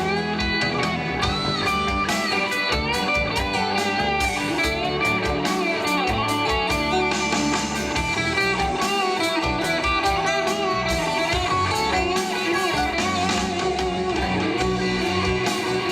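A live band playing, with electric guitar to the fore over bass guitar and drums.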